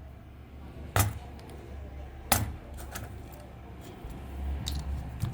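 Two sharp clicks about a second and a half apart, then a few lighter ticks, over a steady low hum: small hard parts or tools being handled.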